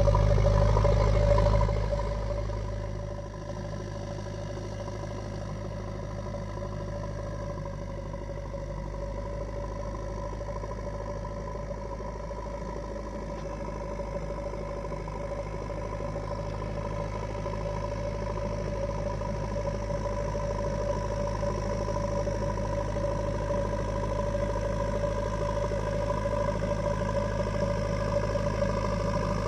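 JCB 3DX backhoe loader's diesel engine running steadily. It drops in level about two seconds in, then slowly grows louder.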